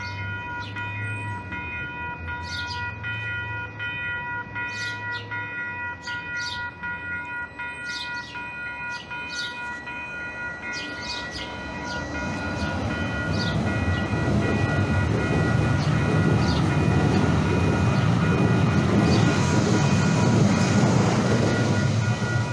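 A passing or moving train on rails, with a steady high whine throughout and short high squeaks. The rumbling grows louder about halfway through and stays loud.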